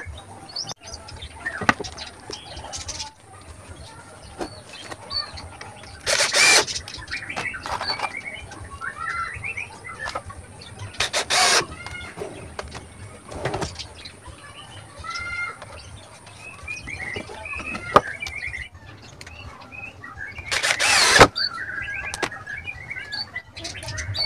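Small birds chirping in short, repeated calls, with four loud, brief rushing noises spaced several seconds apart.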